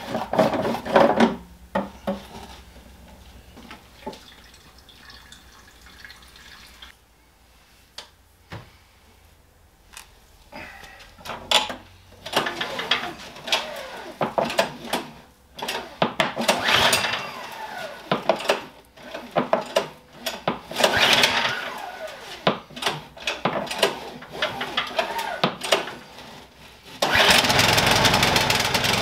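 Gas snowblower being cranked over again and again in a cold-weather start attempt, the engine turning over without catching. Near the end it catches and keeps running steadily.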